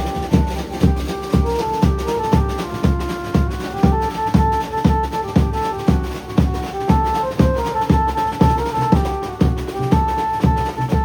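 Maharashtrian banjo band playing: an amplified banjo carries a melody of held, stepping notes over a drum kit and bass drum beating about twice a second.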